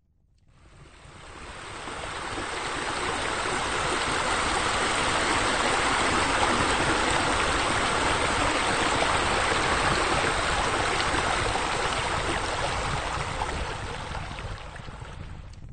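Rushing water of a spa spilling over its edge into a pool: a steady splashing rush that swells in over the first few seconds and fades out near the end.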